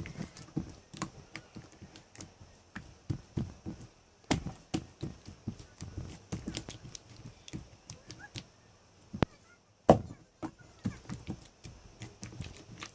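Homemade slime being squished and worked, making irregular sticky clicks and pops, several a second, with one sharper snap near the end.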